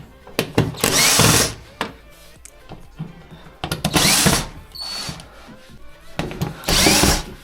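Cordless drill or screwdriver running in three short bursts about 2.7 seconds apart, each lasting well under a second, with the pitch rising as the motor spins up.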